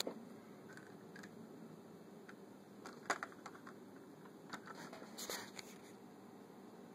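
Quiet room tone with a few soft clicks and rustles of handling, the sharpest about three seconds in.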